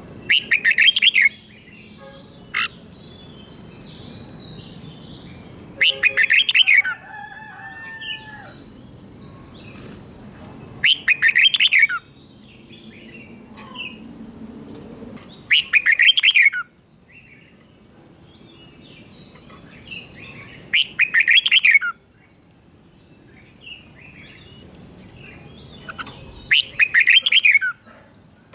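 Red-whiskered bulbul singing its doubled-phrase song: six loud, quick warbled phrases about a second long each, spaced about five seconds apart, with fainter chirping between them.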